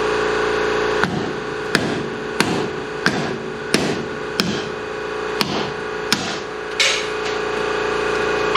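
A hammer striking a stuck part on an old truck's front suspension, trying to break it off: about nine sharp blows, roughly one every two-thirds of a second with a short pause midway, over a steady hum.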